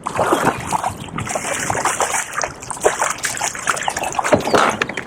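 Water splashing and trickling, uneven and choppy, with many small splashes.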